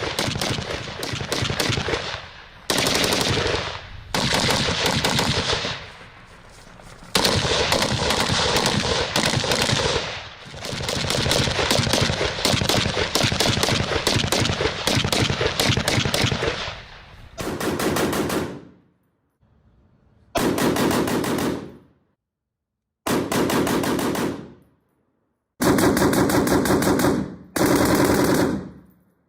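BW-20 rifle firing on full automatic in long continuous bursts, then several shorter bursts of a second or two with silent gaps between them.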